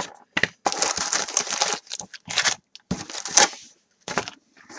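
Cardboard and plastic wrapping crinkling and tearing in a series of irregular bursts as a sealed hobby box of baseball cards is handled and opened.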